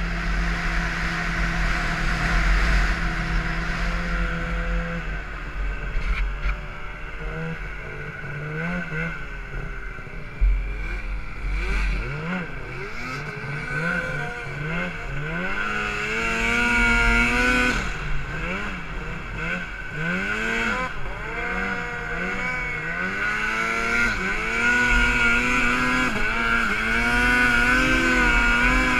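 Arctic Cat M8 snowmobile's two-stroke engine heard from the rider's seat, revving up and down again and again with the throttle while riding through deep powder, then held at high revs near the end on a steep climb. A single sharp knock about ten seconds in.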